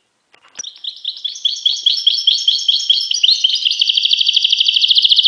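A finch singing: a run of repeated clear, high notes that speeds up into a fast, even trill.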